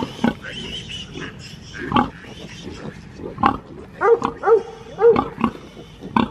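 A sow and her young piglets: a series of short pig grunts, several coming close together about four to five seconds in.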